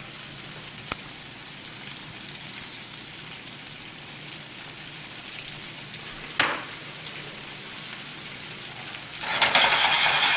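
Chicken pieces with basil sizzling steadily as they sauté in a frying pan, with a couple of sharp utensil clicks. Near the end the sizzling suddenly surges much louder as steam rises off the pan.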